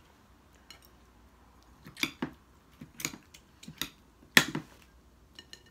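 Metal spoon clinking and scraping against plates and bowls in a handful of separate sharp clinks, the loudest about four and a half seconds in.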